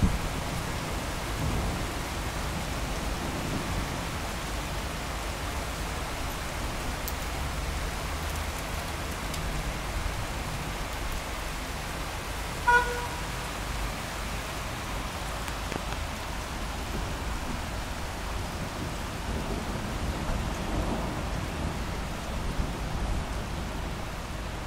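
Steady rain falling, with low rumbles of thunder. About halfway through comes one short beep.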